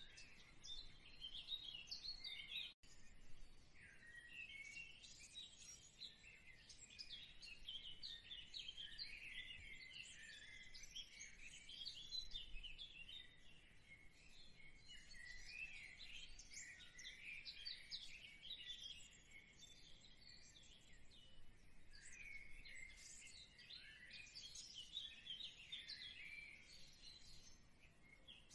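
Faint, continuous chirping and chattering of many small birds.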